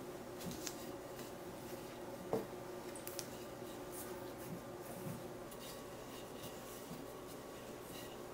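Hands pressing and patting a soft bread-dough ball flat on a floured silicone baking mat: quiet rubs and light taps, with one sharper knock about two seconds in, over a faint steady hum.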